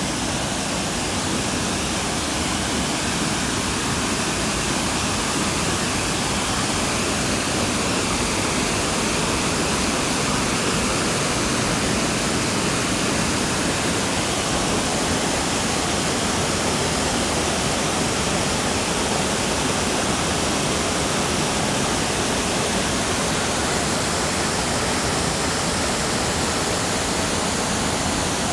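Steady rush of water pouring down a natural waterfall.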